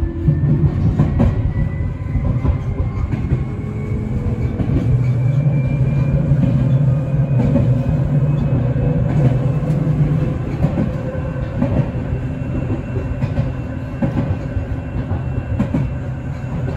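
Seibu Railway electric train running, heard from inside the front car: a steady low rumble with wheel clatter over the rail joints, and a faint whine rising slowly in pitch as the train gathers speed.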